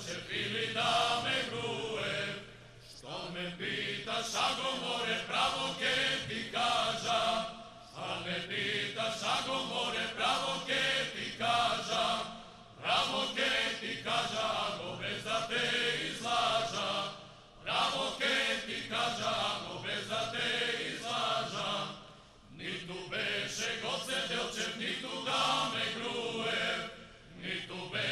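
Male vocal ensemble singing in close harmony, a cappella, in phrases of about four to five seconds with a brief break between each.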